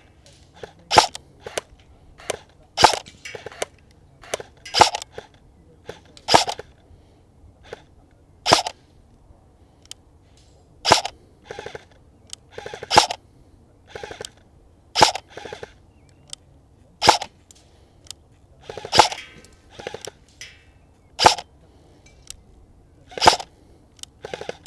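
Arcturus AK12 airsoft electric rifle firing single shots, about a dozen sharp snaps roughly two seconds apart, with fainter ticks after some of them.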